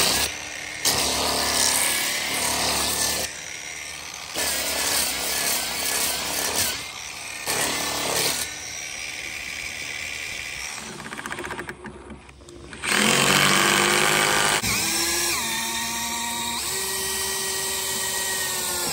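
Angle grinder with an abrasive sanding disc grinding the end of a peeled-log handrail, run in several short bursts. From about two-thirds of the way in, a power drill whines steadily as it drives into a log post, its pitch stepping down and dropping off as it stops near the end.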